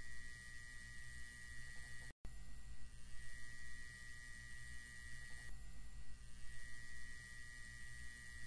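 Low steady electrical hum with a thin high whine above it; the whine fades out and comes back twice. The sound cuts out completely for a split second about two seconds in.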